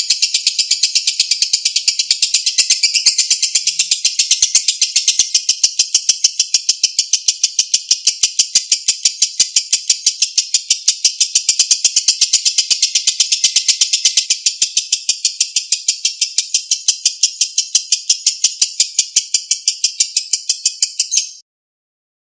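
Lovebird doing its long 'ngekek' chatter: a loud, unbroken run of rapid, high, scratchy repeated notes that goes on for about twenty seconds, stops suddenly, and starts again after about a second of silence near the end.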